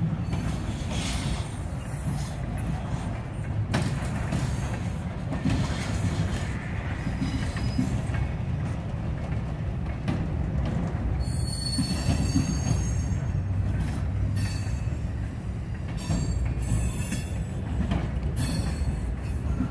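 Freight train cars rolling past with a steady low rumble of wheels on rail. High-pitched wheel squeal comes and goes over it, strongest about halfway through and again near the end.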